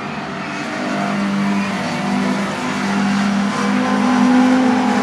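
Fiat 128 Coupé race car's four-cylinder engine running hard through a corner, its note growing louder as the car comes close, loudest about four seconds in.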